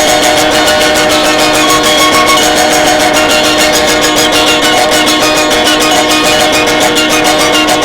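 Loud music with guitar over a steady held drone, with a fast even pulse.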